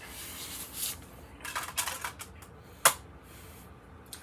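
Rustling and scraping handling noises, with one sharp click about three seconds in.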